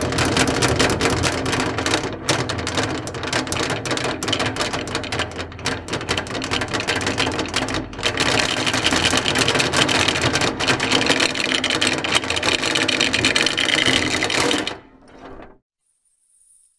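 A running mechanism making a dense, rapid clatter of clicks and rattles. It breaks briefly about halfway through, then stops abruptly near the end.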